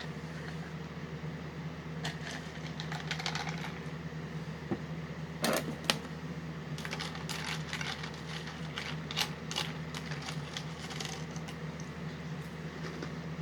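Spoon clicking against a bowl and crunching as sugar cookie cereal in milk is eaten: scattered sharp clicks, two louder strikes about halfway through, over a steady low hum.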